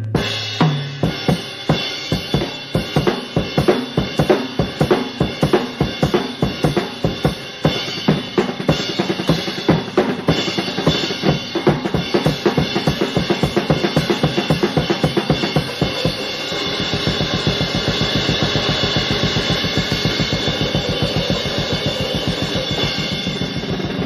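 Drum kit played in a busy break, with bass drum, snare and cymbal strokes. About two-thirds of the way through, the playing turns into a fast, even run of drum strokes.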